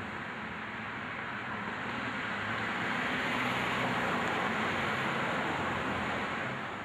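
Street traffic noise: a steady rush of passing cars that swells a little in the middle and drops away at the end.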